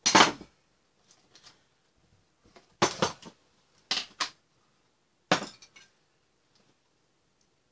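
Bowls and plastic food containers clattering and clinking as they are handled and set down on a table, with a lid and chopsticks knocking against them. The loudest clatter comes first, then a few more knocks spread over the next five seconds.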